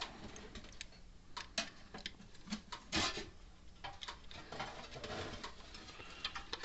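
Scattered small clicks and light knocks of wire connectors being pushed onto the terminals of a replacement circuit board in a fence energizer, over a faint steady low hum.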